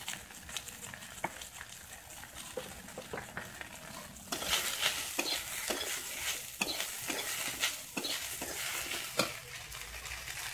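Brahmi greens and potato sticks frying in a metal wok, a faint sizzle at first; about four seconds in a metal spatula starts stirring them, with a louder sizzle and repeated scrapes and knocks against the pan.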